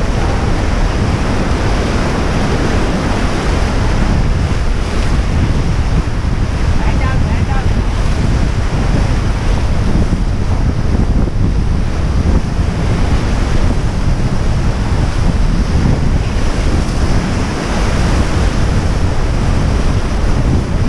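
Whitewater river rapids rushing steadily and loudly around an inflatable raft, with wind buffeting the microphone.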